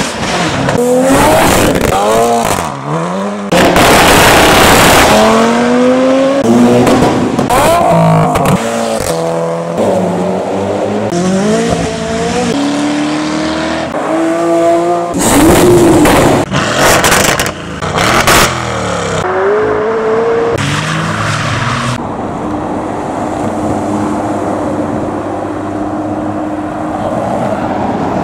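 Modified cars and supercars accelerating hard one after another, their engines revving up in rising pitch and dropping back at each gear change, with several loud bursts of exhaust or tyre noise. Near the end a steadier engine drone holds one pitch.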